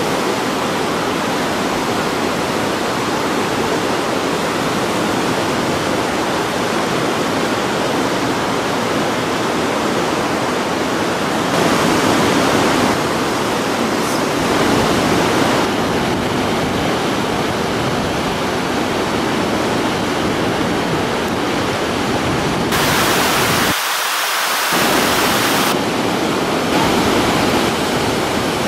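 Steady, loud rush of whitewater rapids on a big mountain river. The noise grows brighter and hissier for a few seconds about 23 seconds in.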